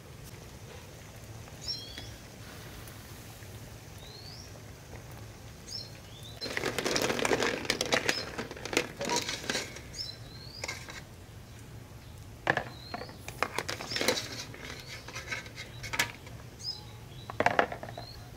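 A ladle scooping boiled duck eggs out of an aluminium pot and moving them into a plastic basin of water: a loud stretch of clatter and splashing about seven seconds in, then separate knocks and splashes every second or two. A bird chirps now and then in the background.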